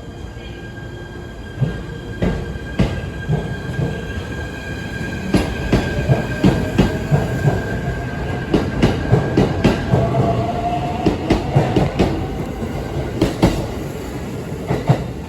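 Train running on the rails: a steady rumble with a run of sharp clacks, roughly two or three a second, as the wheels pass over rail joints, and a faint tone that rises slightly about ten seconds in.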